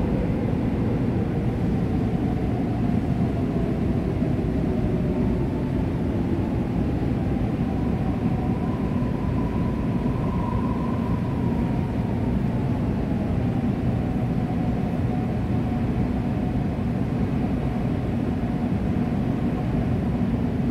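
Running noise inside a Suin–Bundang Line electric subway car: a steady rumble from the wheels and track, with a whining tone that climbs in pitch about halfway through and then sinks again.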